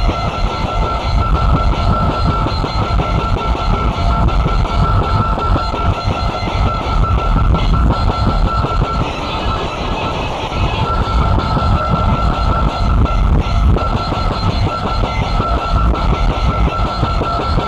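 Lo-fi cassette recording of a rock song, heavily distorted and noisy, with a steady high whine through it that drops out briefly about ten seconds in.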